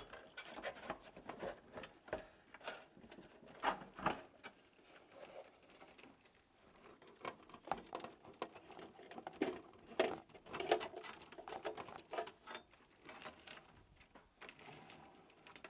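Irregular clicks, taps and rustles of hands working on cables and parts inside a PC case, with a few sharper clicks about 4 and 10 seconds in.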